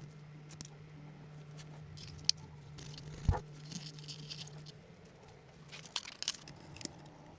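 Workshop handling noises: scattered light clicks and scrapes, with one louder thump about three seconds in, over a steady low hum.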